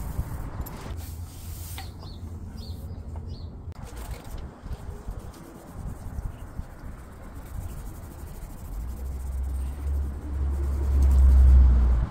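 Outdoor ambience: a few short bird chirps about three seconds in, over a low rumble that swells loud near the end.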